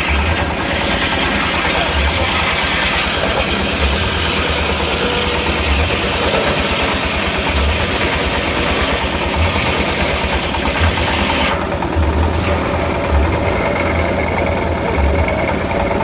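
Engine of a circular sawmill running steadily with a throbbing low rumble. A higher hiss layered over it cuts off about twelve seconds in.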